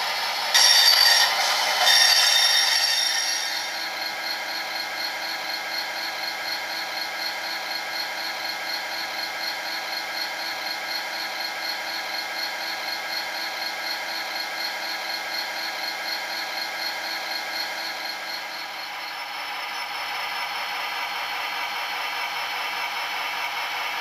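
Diesel engine sound of a Northern Ireland Railways class 111 locomotive (EMD 645 engine), running steadily with an even throb, played by a model's DCC sound decoder through its small speaker. A loud hiss comes in about half a second in and lasts some three seconds, and the engine note shifts a little about 19 seconds in.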